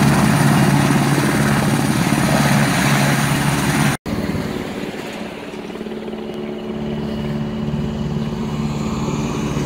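Police helicopter running on the ground, its engine and rotor making a loud, steady sound. About four seconds in it cuts off abruptly to a quieter, steady mechanical hum beside a road.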